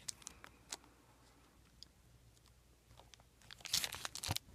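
Plastic DVD hard box and its plastic sleeve being handled: a few faint clicks, then a short burst of crinkling and clicking about three and a half seconds in.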